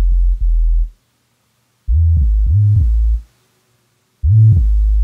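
Deep sine sub-bass notes from Logic Pro's stock Sine Sub Bass instrument, played on their own in short phrases with gaps between them. The pitch slides up and down from note to note, the bass glide made by setting the instrument's glide to 98 ms.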